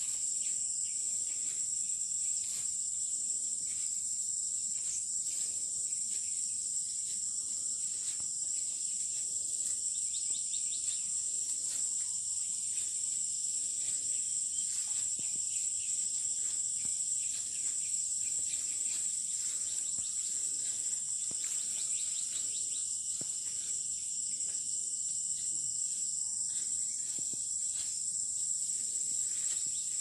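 A steady, high-pitched insect chorus from the tropical rice field, with faint short trills over it now and then.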